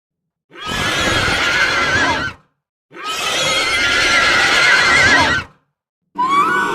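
Demon horse sound effect: two long horse whinnies with a wavering, quivering pitch, each about two seconds, separated by short silences. A third whinny starts near the end with a rising pitch.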